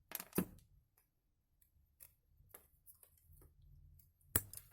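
A few sharp clicks and light taps from pieces of electrical wire and small tools being handled on a workbench, loudest just after the start and again near the end.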